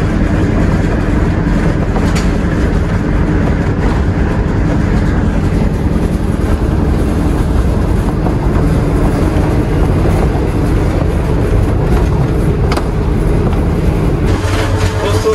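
Passenger train carriage running on the rails, heard from inside the compartment: a steady loud rumble and rattle. A sharp click comes about two seconds in and another near the end.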